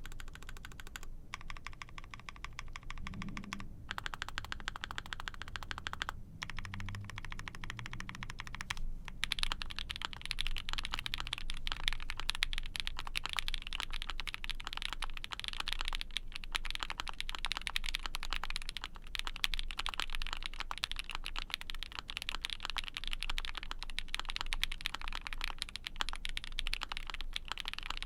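Typing on a mechanical keyboard: an Ai03 Vega with a POM plate, GMK keycaps and lubed 'Milky Ayara' frankenswitches (SP-Star Ayara bottom housing, cream stem, Milky black top housing), a poppy-sounding switch with a soft bottom-out. Rapid keystrokes with a few brief pauses in the first nine seconds, then faster, denser typing.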